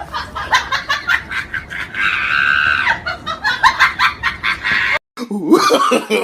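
Rapid, high-pitched cackling like a chicken's clucking, with a long squeal held in the middle. It cuts off suddenly about five seconds in, and a different gliding, voice-like sound effect starts.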